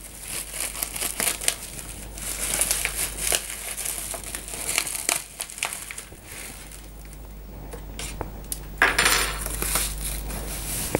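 Plastic mailer bag crinkling and crackling as it is cut with a small knife and peeled off a cardboard box, with scattered clicks and a louder burst of rustling about nine seconds in.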